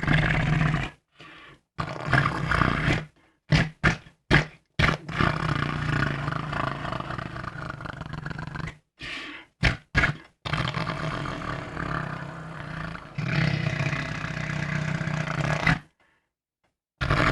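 A person making imitation fart sounds over and over: a string of low, raspy buzzes, some short and several long ones lasting a few seconds, with brief silent gaps between them.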